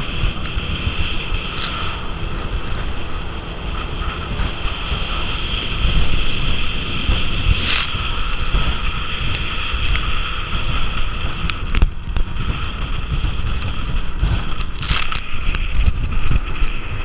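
Outboard motor of a bass boat running flat out, with heavy wind buffeting the microphone and the hull hissing through the water; a few brief louder bursts of noise, about 1.5, 8 and 15 seconds in.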